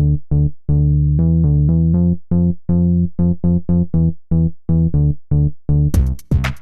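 Background electronic music: a synthesizer playing short, staccato bass-heavy notes in a steady rhythm, with a drum beat coming in near the end.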